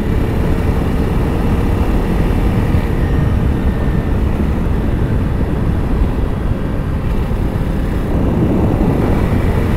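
2022 Honda CRF300L single-cylinder motorcycle cruising at a steady speed: engine running evenly under a steady rush of wind on the microphone.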